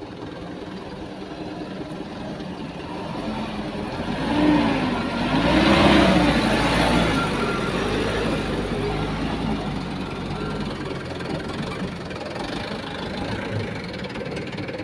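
Diesel engines of a Kobelco hydraulic excavator and an idling dump truck running steadily. The engine note swells about four seconds in as the excavator works under load, then settles back.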